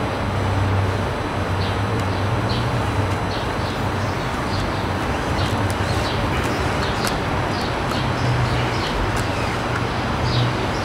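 Outdoor background: a steady rumble and hiss with a low hum, and small birds chirping in short high notes throughout.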